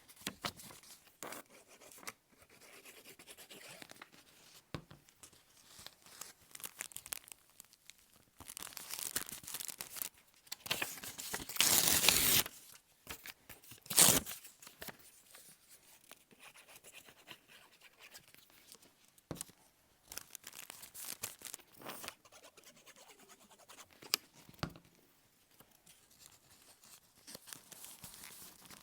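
Paper being handled and torn in irregular bursts, with quieter rustling between; the longest, loudest tear comes about halfway through, followed shortly by a sharp snap.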